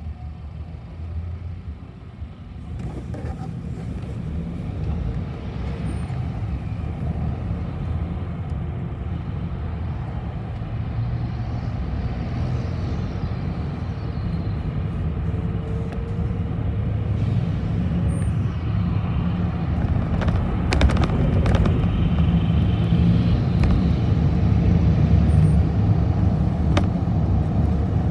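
City bus on the move: a steady low engine and road rumble that gets gradually louder, with a few sharp clicks or rattles.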